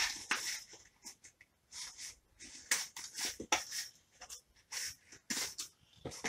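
Small cardboard box and its packaging being handled and worked open: a series of short, irregular rustles and scrapes.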